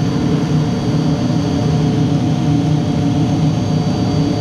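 Steady loud hum of running machinery, a low roar with a thin, constant high whine over it, unchanging throughout.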